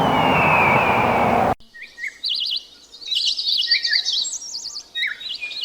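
Small birds singing: rapid warbling trills and short chirps, repeated. They start abruptly about a second and a half in, after a loud steady rushing noise carrying a falling whistled call.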